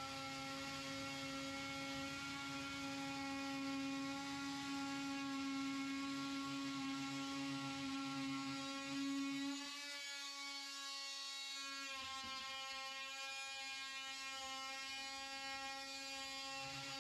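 Cordless oscillating multi-tool buzzing steadily as its blade plunges and saws through drywall along a marked line. The rougher cutting noise under the buzz drops away for a couple of seconds about ten seconds in, then returns.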